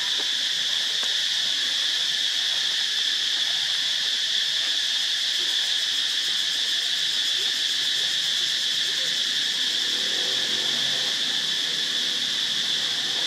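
Steady, high-pitched drone of an insect chorus, unchanging in pitch and level.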